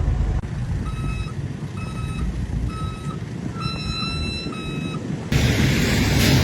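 A vehicle's reversing alarm beeping about once a second over a low engine rumble. About five seconds in, it cuts suddenly to a loud, steady rushing noise.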